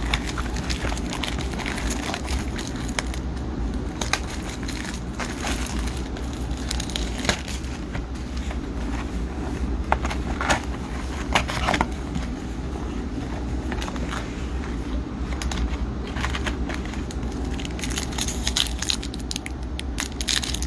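Crinkling and crackling of packaging as a retail box of hockey cards and its packs are opened, with scattered sharper clicks over a steady low hum.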